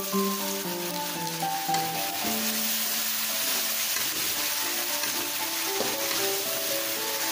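Chili and spice paste sizzling in a hot wok as a metal spatula stirs it, with a little water added to keep it from burning.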